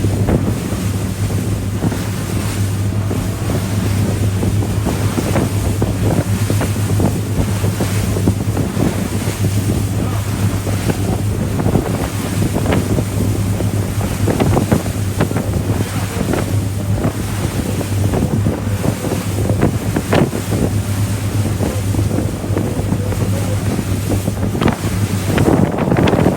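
Boat under way on open water: a steady low engine hum beneath wind buffeting the microphone and water splashing and rushing past.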